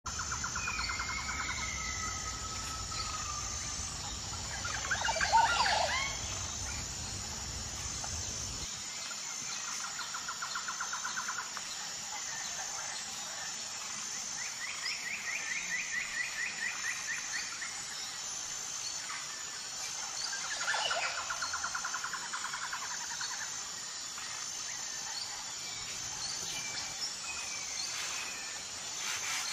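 Woodland birds calling: several short, rapid trills and a few rising and falling whistles over a steady outdoor background, with one louder call about five seconds in.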